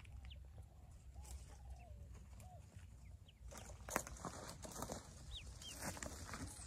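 Pekin ducklings peeping at a nest, short high arched peeps that come thickest in the second half, over rustling of the straw as they move under the hen. A few lower, softer calls come in the first half, and there is a sharp tick about four seconds in.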